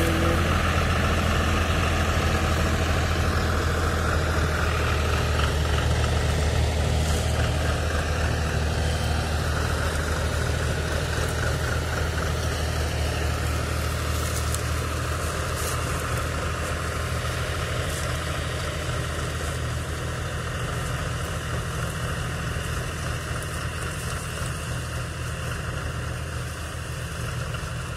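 Two small diesel farm tractors running under load, hitched one ahead of the other, hauling a heavily loaded sugarcane trolley. A steady low engine drone that slowly fades as they pull away.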